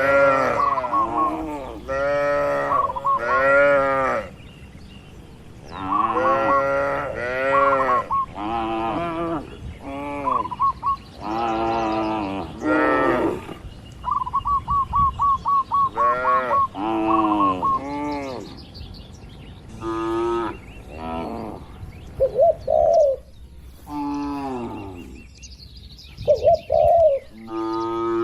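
Several cattle mooing one after another through the whole stretch, some calls overlapping, and a few shorter, higher-pitched ones near the end.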